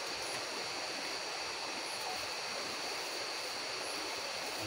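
Steady rush of a large river flowing, with a constant high-pitched tone above it.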